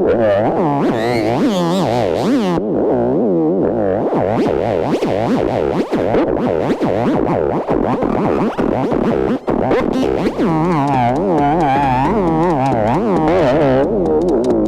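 Electronic music with wobbling synthesizer lines that sweep rapidly up and down in pitch, played loud and continuous.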